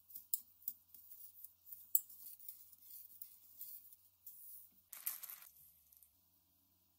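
Wooden spatula scraping and clicking irregularly against a stainless steel saucepan while stirring brown sugar, butter and cream. A short hiss about five seconds in, then quieter.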